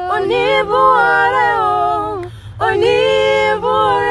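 A cappella group singing: women and a man singing a praise song together, unaccompanied, with a short break a little past halfway before the voices come back in.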